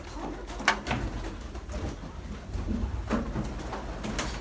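Domestic pigeons cooing, with a few sharp clicks or knocks scattered through.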